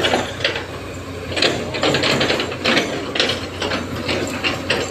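Hydraulic excavator working, its engine a steady low drone under irregular sharp metallic clanks, about two to three a second.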